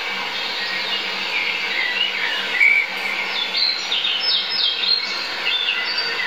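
Small songbirds chirping and singing in short, varied phrases, over a steady background hiss and a low hum.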